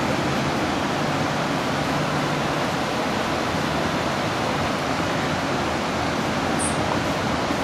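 Shallow river water rushing over rocks: a steady, even rush.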